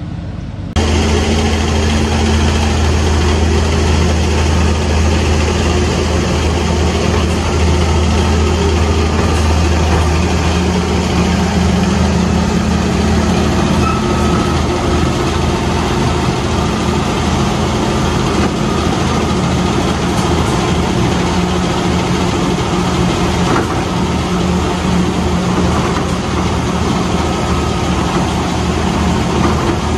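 Tractor engine running steadily under a steady deep hum, starting abruptly about a second in.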